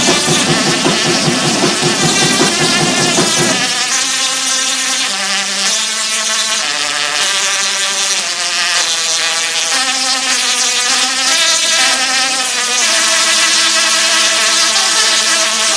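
Singing Tesla coil's sparks buzzing out a tune, one note at a time in stepping pitches. For the first few seconds the buzz is lower and rougher before the melody notes start.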